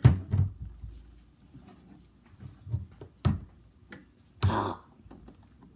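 Hands pressing and kneading homemade slime on a tabletop: a few dull knocks on the table, the loudest right at the start. There is a brief hissing rustle about four and a half seconds in.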